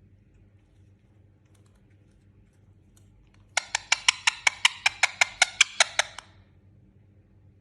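Indian ringneck parrot giving a rapid string of short, sharp clicking calls, about six a second, starting about halfway through and lasting a couple of seconds.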